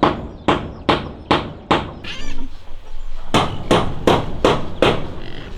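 Hammer blows on wood, about two and a half a second, in two runs of five with a short pause between them.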